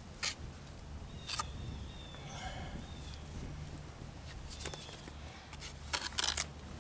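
Steel brick trowel scraping and tapping against fresh mortar and brick while a course of brick is laid: a few short, sharp scrapes spread out, with a quick cluster of them near the end.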